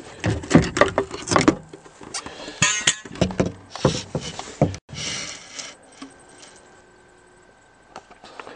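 Clicks, knocks and rattles of a slide-on camper's table being handled and set up by hand, busiest in the first five seconds. After that it goes quieter.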